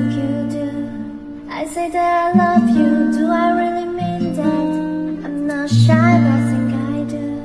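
A woman singing an English-language pop song to an acoustic guitar, with no vocal editing. The guitar's low notes change about every two seconds under the wavering sung line.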